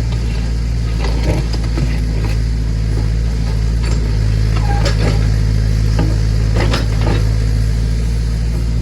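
Massey Ferguson backhoe's engine running steadily, with scattered metallic clanks and knocks from the working bucket and linkage.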